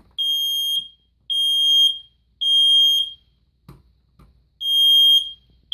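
First Alert SA303 ionization smoke alarm sounding its test alarm in the temporal-three (code 3) pattern: three high-pitched beeps of about half a second each, a pause, then the next set of three begins near the end.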